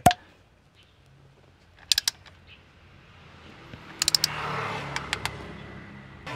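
Sharp metal clicks and light clatter of hand tools as a torque wrench is fitted onto a hex-bit extension to tighten an aluminium transmission drain plug. One loud click at the start, a few clicks about two seconds in, and a cluster of clicks around four to five seconds.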